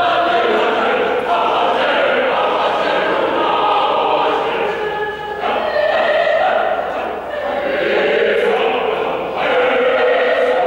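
School choir singing together in several voices, holding long notes, with short breaks between phrases about five and seven seconds in.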